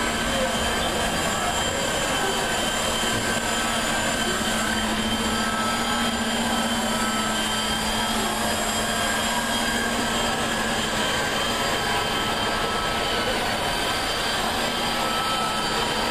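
Steady, unbroken mechanical drone of a cruise ship's deck machinery, with a low hum and several thin, steady whining tones above it.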